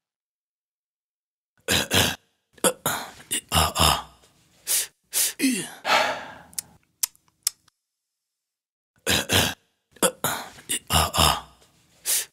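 A person's breathing sounds: hard breaths, sighs and gasps in uneven bursts, with a short falling moan now and then. They begin after a moment of silence and come in two similar runs, with a pause of about a second and a half between them.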